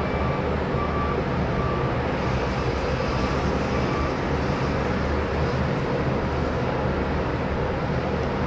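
Steady low rumble of a diesel freight train approaching at a distance, mixed with the hum of industrial surroundings. Faint short beeps repeat during the first few seconds.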